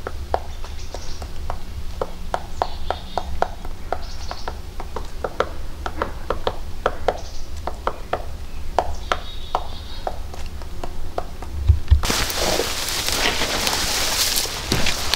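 A woodpecker pecking at aspen bark: sharp, irregular taps, about two or three a second. About twelve seconds in this gives way to a steady rustle of someone pushing on foot through tall dry grass and brush.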